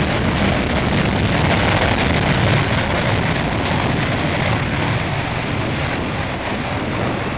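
Panavia Tornado's twin RB199 turbofan engines running on the ground: a steady, loud jet rumble and hiss that eases slightly in the second half.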